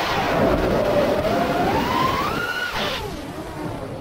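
The brushless motors of a 5-inch FPV freestyle quadcopter whine, with wind rushing over the onboard camera's microphone. The whine climbs steadily in pitch for about two and a half seconds as the throttle is pushed. It then drops sharply and goes quieter as the throttle is cut.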